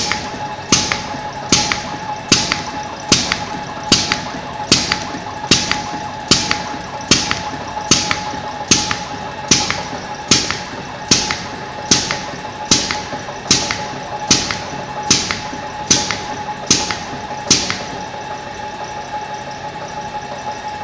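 CNC brazing ring making machine (RM-25) running: its pneumatic cutter snaps sharply about every 0.8 s, each snap cutting off one formed wire ring, over a steady motor hum. The snaps stop a few seconds before the end while the hum goes on.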